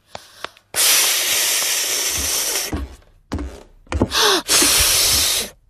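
Cartoon pig blowing hard through pursed lips in a failed attempt to whistle: two long breathy rushes of air with no whistle tone, a short voiced grunt just before the second.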